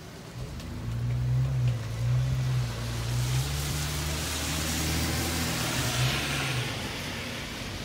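A motor vehicle passing on a wet road: a steady engine hum and the hiss of tyres on wet pavement that swells mid-way and fades near the end.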